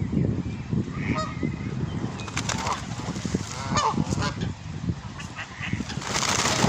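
Geese honking, several separate calls over a steady low rumble.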